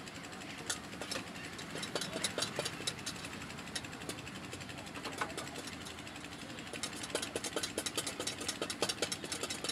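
Handling of a wooden idiyappam press and its dough bowl: bursts of rapid clicks and taps about two seconds in and again near the end, over a steady low hum.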